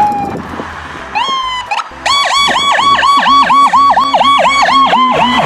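Toy ambulance's electronic siren: after a short rising chirp, it plays a fast repeating wail of about three to four sweeps a second.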